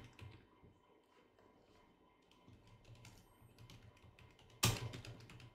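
Keystrokes on a computer keyboard: a few faint clicks in the first second, then a quick run of louder keystrokes near the end.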